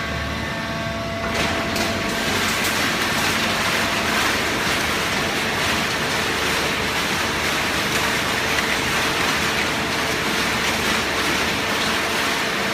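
Hydraulic paper baler running: a steady mechanical din with a faint constant hum, growing fuller about a second in.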